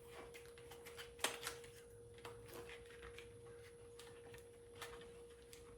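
Faint clicks and rustles of a small cardboard box and its packaging being opened and handled, the clearest click about a second in. A steady faint hum runs underneath.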